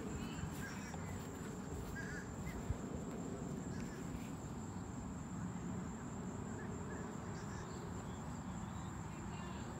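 Outdoor ambience on a sunny golf course: a steady high-pitched insect drone with a few short bird calls over a low background noise, and a single soft knock about three seconds in.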